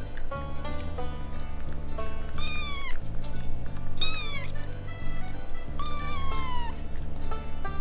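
Young kitten mewing three times, each call high-pitched and dropping in pitch at the end, over cheerful background music with a steady beat.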